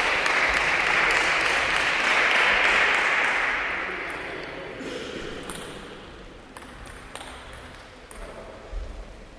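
Spectators applauding a won point in a table tennis match, the clapping fading out over about five seconds, followed by a few scattered sharp clicks.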